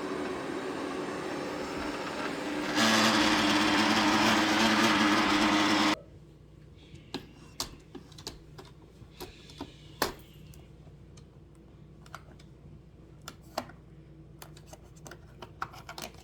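Eufy robot vacuum running with a loud grinding sound, like rubber on rubber, a fault that persists even after the machine was taken apart and cleaned. The noise gets louder about three seconds in, then cuts off suddenly a few seconds later, leaving only faint scattered clicks.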